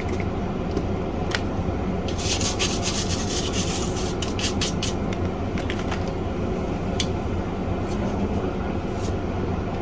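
Stiff brush scrubbing a circuit board wet with alcohol, in a quick run of scratchy strokes about two seconds in, with a few scattered clicks and taps. A steady hum runs underneath.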